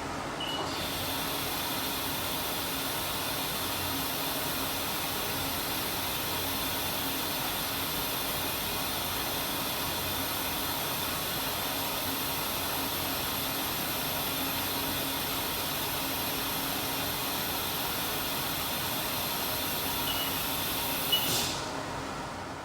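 CNC mill spindle running steadily, turning a long reamer in an ER40 collet holder for a dial-indicator runout check: a steady hiss with a few held whining tones. It starts abruptly about half a second in and stops abruptly about a second before the end.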